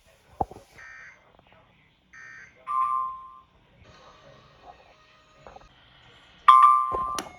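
The closing EAS end-of-message data bursts: short electronic warbles about a second apart. They are followed by two louder, brief electronic beep tones, one about three seconds in and one near the end.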